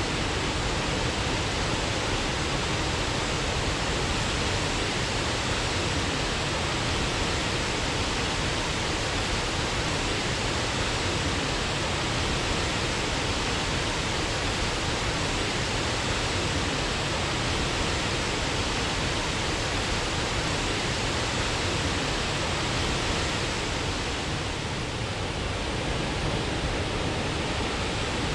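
A waterfall rushing: a steady, unbroken roar of falling water, dipping slightly for a moment near the end.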